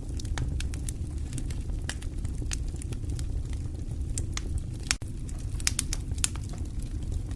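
Wood fire crackling, with sharp irregular pops and snaps over a steady low rumble, mixed with the patter of light rain.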